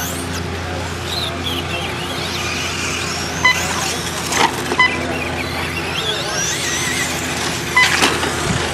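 Several electric 2WD short course RC trucks racing on dirt, their motors and gears whining up and down in pitch as they speed up and slow down. A few sharp knocks come from the trucks landing or hitting the track edges, and short high beeps sound now and then over a steady low hum.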